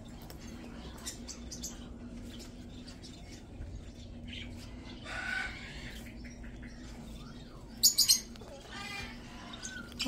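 Caged parakeets and parrots chirping and squawking, with a quick run of about three sharp, shrill calls near the end and a steady low hum underneath.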